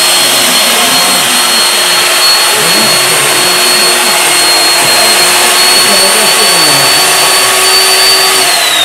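RIDGID B-500 pipe beveling machine running, its cutter head beveling the end of a steel pipe with a loud, steady motor whine and cutting noise. About eight and a half seconds in, the motor is switched off and its whine falls in pitch as it winds down.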